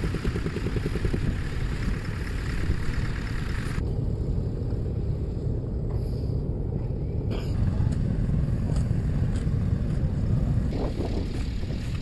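A vehicle engine running steadily under a dense low rumble. The higher hiss cuts out suddenly about four seconds in and comes back about three seconds later.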